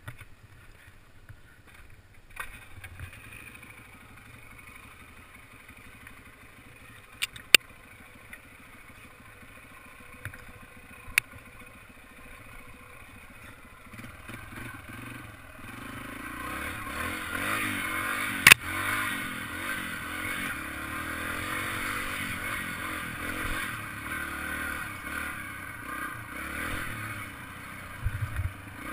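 Four-stroke single-cylinder Yamaha TT-R dirt bike engine running at low throttle on a rough trail, then louder as the throttle is opened about halfway through. A few sharp knocks cut through, the loudest a little past halfway.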